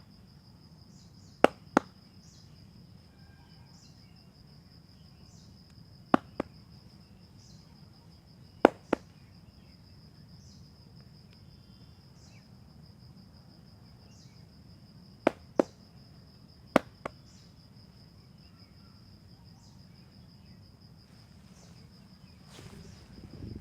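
Sharp hand slaps on a client's back during a massage, landing in quick pairs: five double strikes spread several seconds apart.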